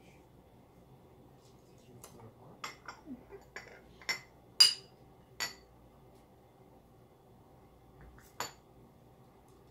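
Lids lifted off a glass tea mug and a ceramic mug and set down on a stone counter: a run of light clinks and taps over a few seconds, the loudest a short ringing glass clink about halfway through, then one more clink near the end.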